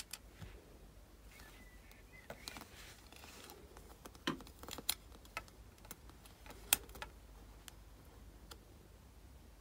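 Irregular light clicks and taps from 1.5 mm (14-gauge) copper wire being pressed and bent by hand around a cabochon, the wire knocking against the work surface and fingers; one click, about two-thirds through, is sharper than the rest.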